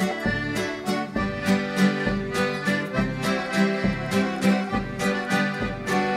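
Instrumental opening of a Chilote folk song: an accordion plays sustained melody chords over strummed guitar, with a steady beat.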